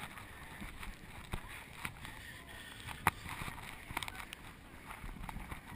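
Muffled footsteps and scuffs on wet, muddy ground picked up by a chest-mounted camera, a few sharp knocks at uneven intervals over a low hiss, with faint voices in the background.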